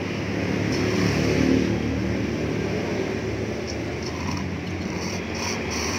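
Road traffic: a motor vehicle's engine rumble swells as it passes, loudest about a second and a half in, then settles into a steady background drone.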